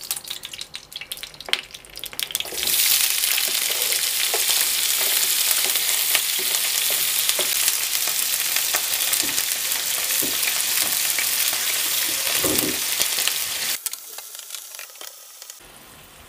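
Diced, refrozen chicken livers hitting hot olive oil in a frying pan: a few clicks as the pieces are pushed in, then loud, steady sizzling from about three seconds in, stirred with a wooden spoon. Near the end the sizzle drops suddenly to a quieter frying hiss.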